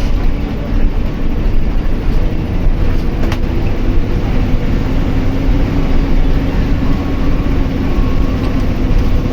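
Passenger train running along the track, a loud, steady rumble of the wheels and carriage heard from on board.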